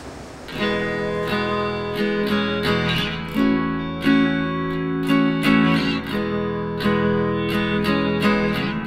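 Background music: a guitar, strummed in a steady rhythm of about two strokes a second, comes in about half a second in.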